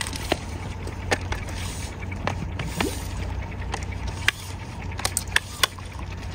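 Water sloshing and trickling over a steady low rumble, with scattered sharp clicks and small knocks, the loudest few about four to five and a half seconds in.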